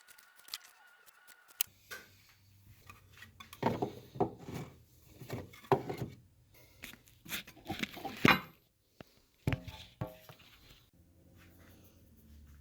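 Scissors cutting strips of rubber from an old swimming-goggle strap: irregular snips and clicks, with a few louder clusters of handling noise.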